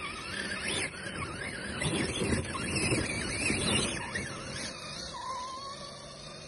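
Traxxas TRX-4 RC crawler's electric motor and gearbox whining, the pitch rising and falling with the throttle. The tyres spin in the dirt and snow, adding a gritty scrabbling that is loudest in the middle.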